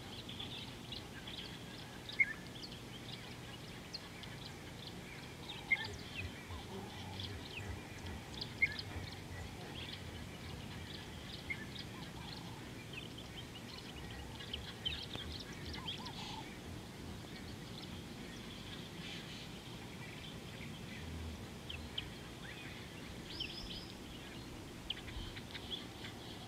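Wild birds chirping and calling, many short high calls overlapping, with a few louder single chirps standing out, over a low steady outdoor background noise.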